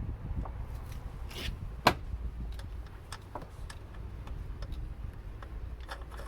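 Scattered light metallic clicks and taps of nuts and tools being handled while the nuts are wound by hand onto the strut top mount studs. One sharper click comes about two seconds in, over a steady low rumble.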